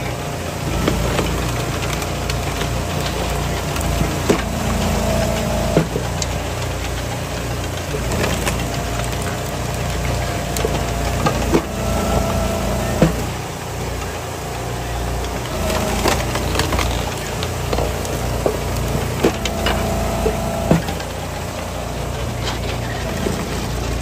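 Eastonmade hydraulic wood splitter running: a steady engine hum, with logs cracking and splitting sharply every few seconds as the ram pushes them through the wedge.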